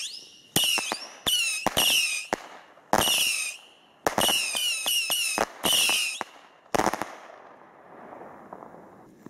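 A ground-placed fireworks battery (salute cake) firing its shots in quick succession, about ten in seven seconds. Each shot opens with a sharp crack and carries a short shrill whistle that falls in pitch. After the last shot only a faint hiss remains.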